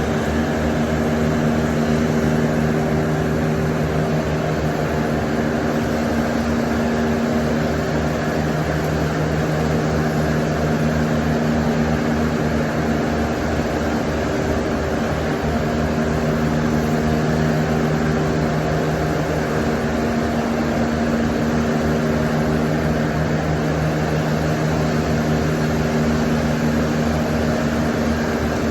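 MIG welding on stainless steel: a steady, continuous arc buzz and crackle over the welding machine's hum, with no break.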